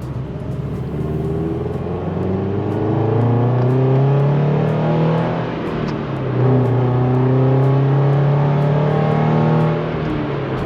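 FA-20 2.0-litre flat-four engine accelerating hard, its revs climbing steadily. A gear change about six seconds in brings the revs down, then they climb again until the throttle lifts near the end.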